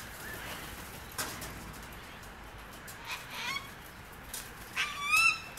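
Sulphur-crested cockatoos calling: several separate short squawks and screeches, the loudest a rising squawk near the end.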